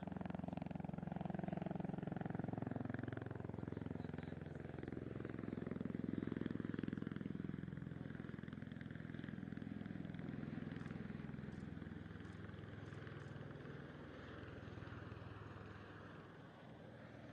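Aircraft engine and rotor noise, a low steady drone that swells about six seconds in and then slowly fades.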